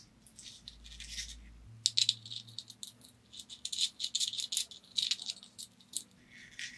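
Quick, irregular clicks and rattles of small metal parts handled up close: a threaded steel insert being fitted and turned with a small hex key in the hub of a sanding backing pad.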